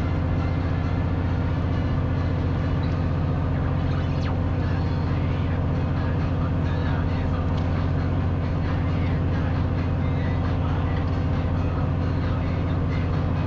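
Steady low hum of a fishing boat's engine running at an even pitch.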